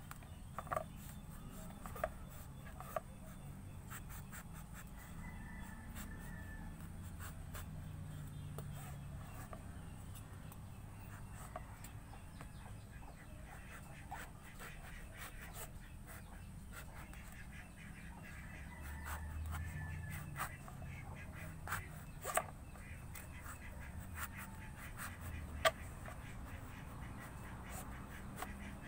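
Knife scoring the thick rind of a pomelo while the fruit is turned in the hand: scattered small clicks and taps over a low, steady background, with faint animal calls.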